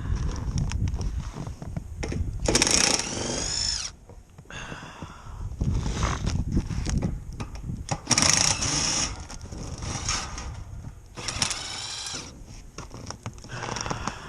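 Cordless drill-driver run in several short bursts, each spinning up and winding down, as screws are driven out to open up the freezer's defrost timer.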